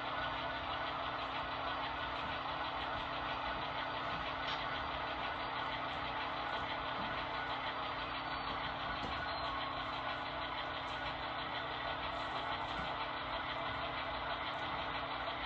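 Model freight train running past on the layout track: a steady, even running noise of the cars and locomotives rolling along the rails.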